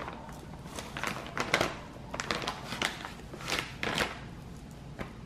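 Plastic packaging rustling and crinkling as a pre-moistened mop cloth is taken out of its packet, a string of short irregular crackles and ticks.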